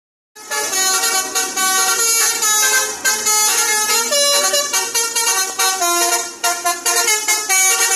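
Basuri telolet bus horn, a multi-note horn, playing a rapid, loud melody of changing notes in short phrases with brief breaks, starting about half a second in.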